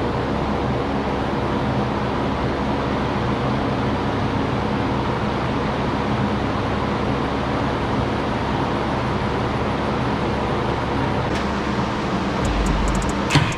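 Large drum fan running, a steady whoosh of moving air with a faint steady motor hum.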